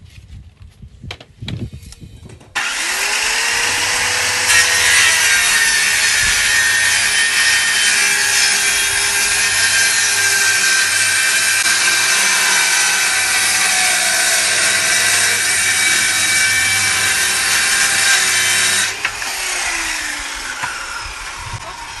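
Handheld electric circular saw starting about two and a half seconds in with a rising whine, then cutting through a wooden board for about sixteen seconds. Near the end the motor is let go and winds down with a falling whine. A few light taps and clicks come before it starts.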